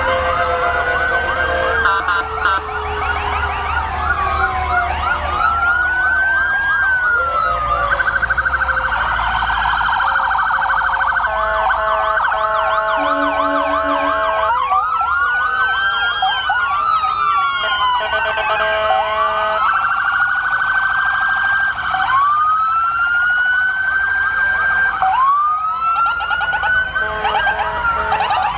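Several emergency-vehicle electronic sirens sounding at once from a procession of police cars and a fire engine. Their wails rise and fall out of step, with stretches of rapid yelping, over a low engine rumble in the first several seconds.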